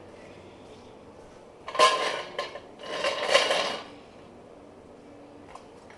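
Metal parts or tools clanking and rattling together as they are handled, in two bursts of a second or so each with a short ringing tone.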